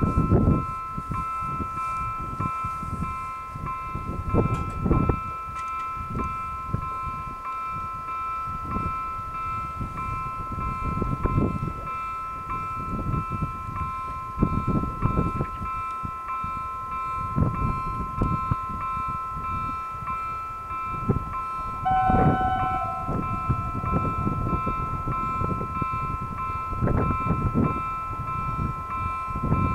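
Level crossing's electronic warning bell sounding a steady two-tone ring while the red lights flash and the barrier arms lower, warning that a train is coming. Gusty wind rumbles on the microphone throughout. A brief, lower extra tone sounds about two-thirds of the way through.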